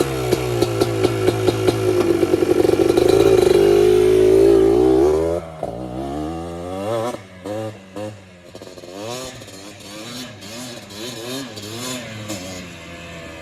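Yamaha Blaster 200 single-cylinder two-stroke quad with a Pro Circuit exhaust, ridden hard at high revs. It is loud for about the first five seconds, then drops and runs quieter, with revs rising and falling as it goes round the track.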